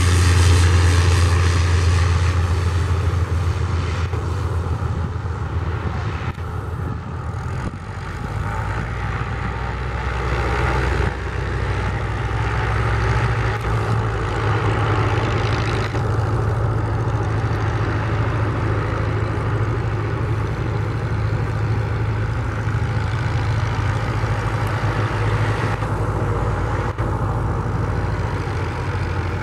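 Cessna 208 Grand Caravan's Pratt & Whitney PT6A turboprop engine and propeller running with a steady low hum as the plane rolls out after touchdown and taxis toward the listener. It is loudest just after touchdown, falls off over the next several seconds, then builds again from about eight seconds in and holds steady.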